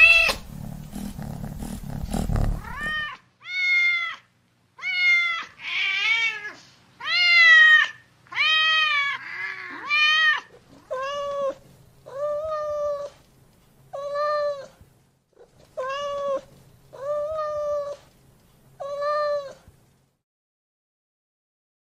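A domestic cat meowing over and over, about fifteen separate meows, each rising and falling in pitch. The first few seconds have a low rumble under them. The later meows come evenly, about one a second, and stop near the end.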